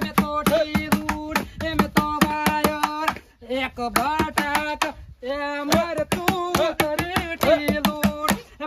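Garba music: a dhol beating a quick, steady rhythm under a melody of held notes that step in pitch. It drops out briefly about three seconds in and again about five seconds in.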